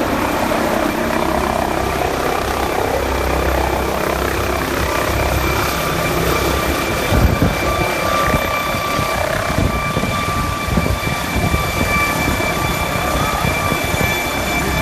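Air ambulance helicopter coming in to land: its turbine whine carries as steady high tones over the rotor noise, and about halfway through a rapid low beating from the rotors joins in.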